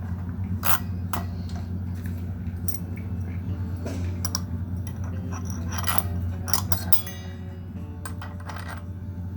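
Metal tools and hardware clinking and clicking as they are handled, in scattered sharp strikes over a steady low hum.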